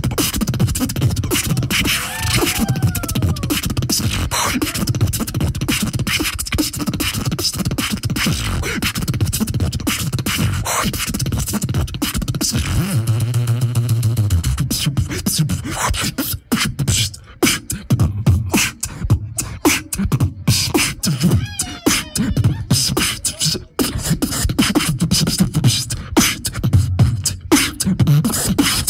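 Solo beatboxing into a handheld microphone: a fast, dense stream of mouth-made kick, snare and click sounds over deep bass hums, with one held bass tone about halfway through and a few sliding whistle-like vocal glides.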